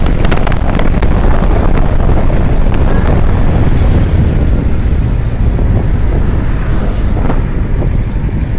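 Wind buffeting the microphone on a moving Kawasaki Ninja 650 motorcycle, with the bike's parallel-twin engine and road noise running under it, loud and steady.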